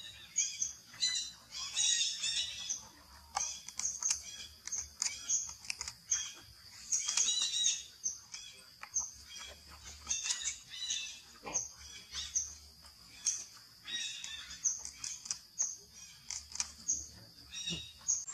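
Many short, high-pitched animal chirps and squeaks repeating throughout, over a continuous high-pitched whine.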